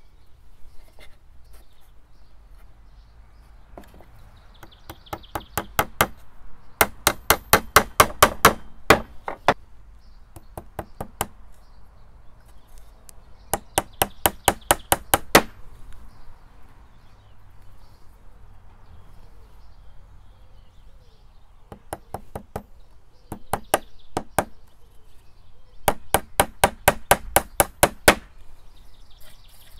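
Small hammer driving 3/4-inch frame nails into the wooden bars of a Hoffman beehive brood frame: several runs of quick taps, about five a second, with pauses between them.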